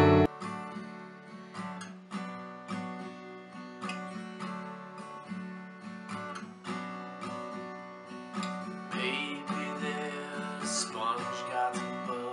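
Acoustic guitar played softly, single notes picked one after another in an even, unhurried rhythm.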